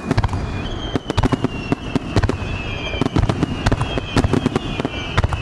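Aerial firework shells bursting close by in a rapid, irregular barrage of loud bangs, several a second, with a thin high whistle wavering underneath.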